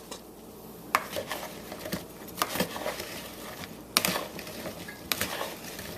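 Zucchini sticks being put into a bowl of breadcrumbs, a soft gritty patter. Several sharp clicks of pieces or a utensil against the bowl come about a second and a half apart.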